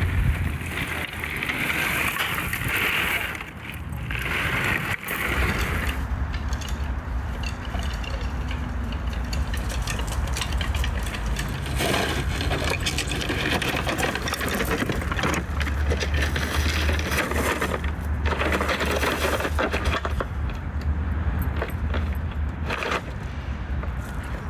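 Large wooden cable spools being tipped, rolled and set down on gravel: gravel crunching under the wooden rims, with knocks and scrapes of wood.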